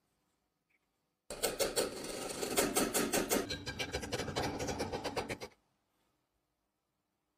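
Rapid rasping, scratching strokes of metal being worked on a small steel pin clamped in a vise. They start about a second in and stop abruptly some four seconds later.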